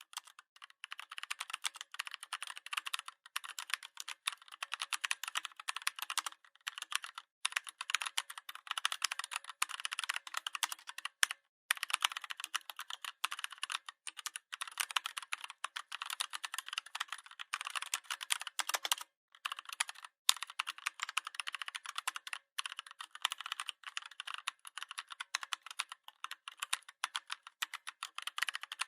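Steady typing on a computer keyboard: a fast, continuous run of key clicks with a few short pauses.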